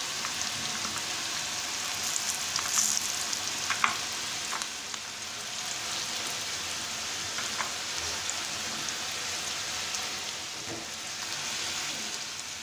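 Onion, green chilies and ground spices frying in oil and butter in a pan: a steady sizzle, with a few light clicks of a spoon stirring now and then.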